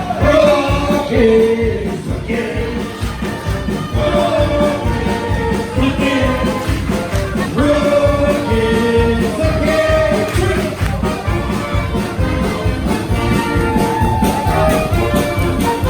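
Brass band music with a steady beat and held melody notes.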